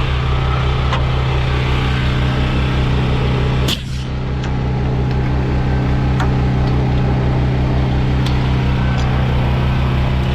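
Diesel semi truck engine idling steadily, with a sharp click about four seconds in.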